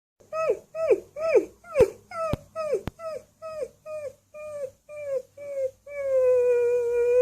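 A dog giving a run of short yips, each falling in pitch, about two a second, then breaking into one long held howl near the end. A few sharp clicks fall among the early yips.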